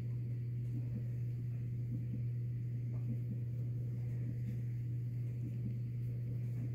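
A steady low hum that stays even throughout.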